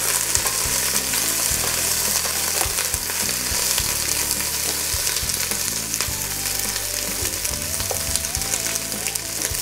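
Diced onions sizzling in very hot olive oil in a stainless steel pot as they sweat, stirred now and then with a wooden spoon. A steady frying hiss with fine crackles and small scrapes and knocks of the spoon.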